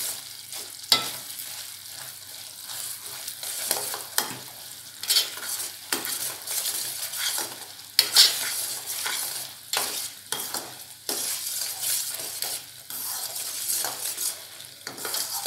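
Metal spoon scraping and knocking against a stainless-steel pan in irregular strokes, stirring grated coconut into bubbling, sizzling cane-sugar syrup with ghee as the sweet filling cooks down.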